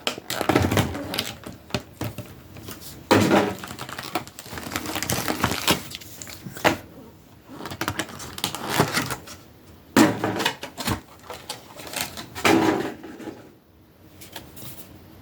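Cardboard product box being opened and its packaging handled: irregular rustles, scrapes and clicks, with several louder bursts of rustling a second or more apart.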